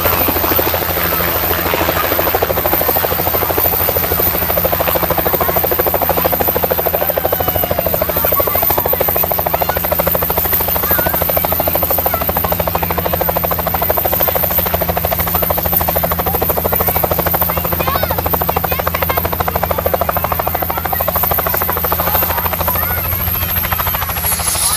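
Bell helicopter's rotor beating steadily at a constant loud level as it hovers low and sets down on its skids.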